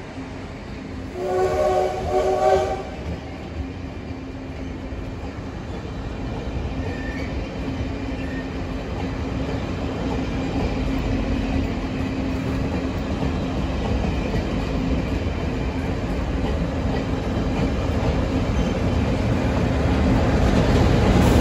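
A train horn sounds about a second in, a chord of two short blasts. A locomotive-hauled passenger train then rolls past with a steady wheel rumble and a low engine hum, both growing louder as the orange diesel locomotive draws near.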